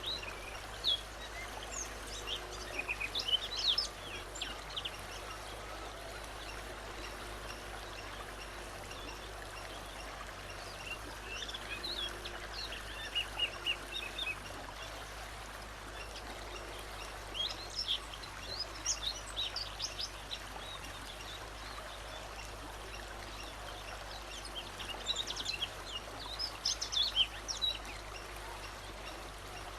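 A songbird singing in four separate bursts of quick, high chirps and trills, with pauses of several seconds between them, over a steady background hiss.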